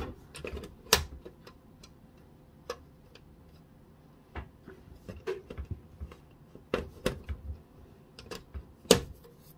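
Irregular hard plastic clicks and taps as the rear cover of a Brother HL-L8260CDW laser printer is handled and its hinge tabs are worked against the printer's back. The loudest clicks come about a second in and near the end.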